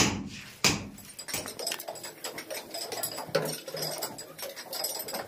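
Hammer blows on a chisel cutting into a brick wall: two sharp strikes about half a second apart near the start, then lighter, quicker tapping. The workers are opening holes under the concrete roof slab to seat the lifting jacks.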